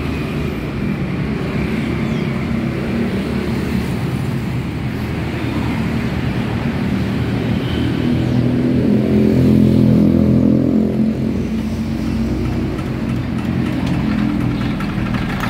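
Small single-cylinder diesel engine of a walk-behind hand tractor running steadily with a low, even hum. It grows louder for a few seconds past the middle, then settles back.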